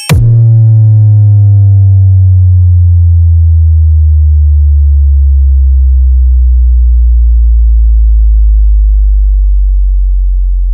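Very loud electronic sub-bass tone, the bass test of a DJ soundcheck track. It starts abruptly and holds while sliding slowly down in pitch over about ten seconds.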